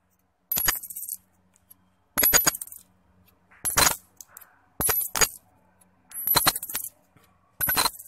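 Metal coins clinking and jingling together in six short bursts, about one every second and a half, each with a bright metallic ring.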